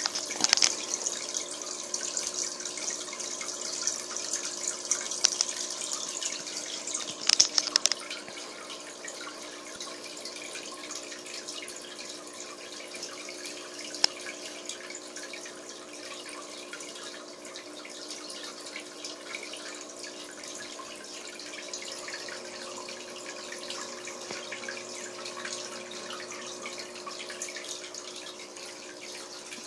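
Water from an aquarium filter splashing and trickling into the tank, over a steady hum. It is louder and choppier for the first several seconds, with a few sharp splashes, then settles to a steady trickle.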